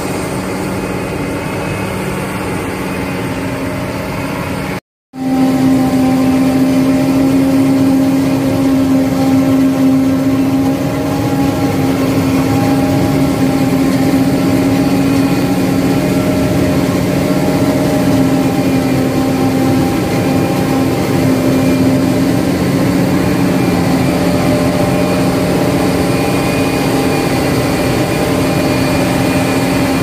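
John Deere self-propelled forage harvester running steadily while chopping maize, a loud unbroken drone with a strong low hum. The sound drops out briefly about five seconds in and comes back louder and closer to the machine.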